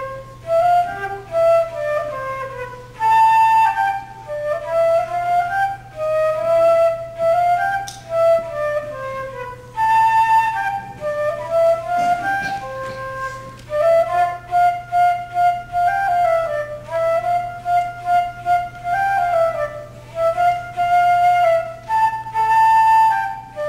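A silver concert flute plays an unaccompanied melody: one line of notes in short phrases, some notes held, with brief breath pauses between phrases.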